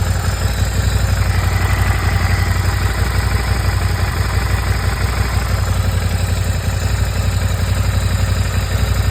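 Suzuki Gladius 400's V-twin engine idling with a steady, rhythmic low pulse. The owner reports an abnormal engine noise and an idle that remains unstable.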